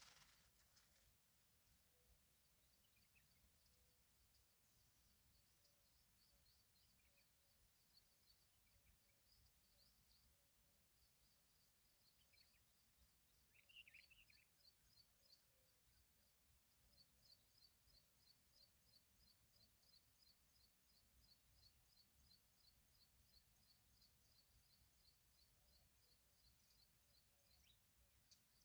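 Faint outdoor natural ambience: a rapid high-pitched chirping goes on steadily, with a few scattered short calls over it, the loudest about 14 seconds in. No peacock call is heard.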